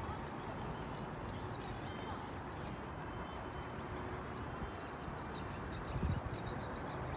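Wind buffeting the microphone in a steady rumbling rush, with a low bump about six seconds in. Small birds chirp and trill high above it.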